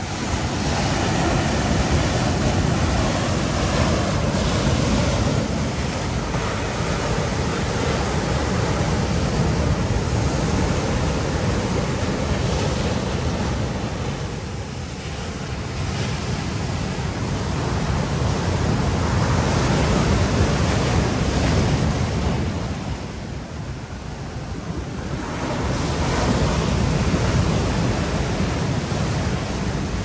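Ocean surf breaking and washing through boulders on a rocky shore: a continuous rush of water and foam that swells and eases with each wave, easing off briefly about halfway through and again about three-quarters of the way through.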